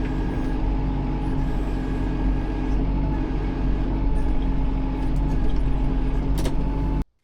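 Tractor engine running steadily, with one sharp click shortly before the sound cuts off suddenly near the end.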